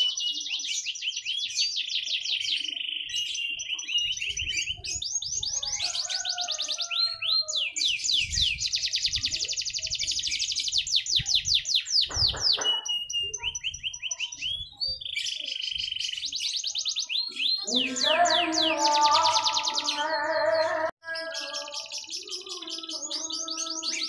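Domestic canary singing a long competition song: fast rolling trills and rapidly repeated high notes, broken into phrases with short whistled glides. Lower-pitched melodic sounds join in about eighteen seconds in.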